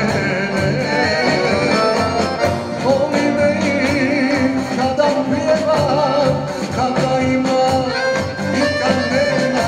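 A man singing a song live into a microphone, backed by an accordion and a drum kit keeping a steady beat.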